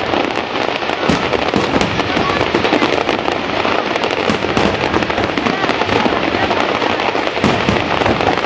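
Fireworks display: a dense, continuous barrage of bangs and crackles, many bursts overlapping one another.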